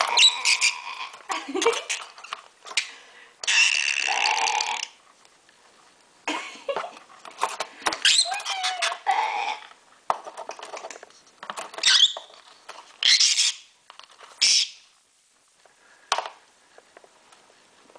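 Rosy-faced lovebird chattering and squawking in short bursts as it bites and wrestles a wooden spoon, with knocks of the spoon and clinks of cutlery in the drawer's plastic tray between the calls.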